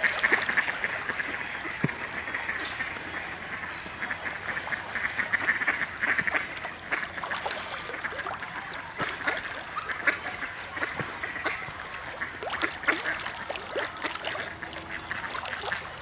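A large gathering of ducks and geese calling together: a steady chatter of many short, overlapping calls.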